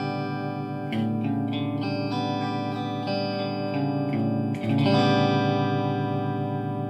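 Electric guitar chords played through a guitar amp and a Celestion 12-inch speaker, lightly overdriven. New chords are struck about a second in and again, loudest, near five seconds, then left to ring and slowly fade.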